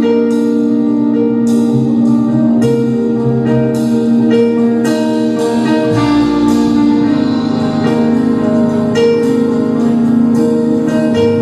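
Instrumental church worship music: held chords with struck notes ringing over them, and no singing.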